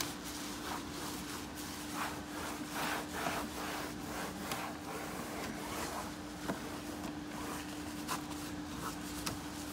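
Damp rag scrubbing a cracked plastic truck dashboard with dish-soap water, in repeated uneven rubbing strokes with a few light ticks. A steady low hum runs underneath.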